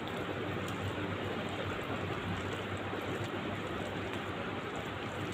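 A steady rushing background noise, with faint wet squelches and ticks of fingers mixing rice, dal and mashed potato in a steel plate.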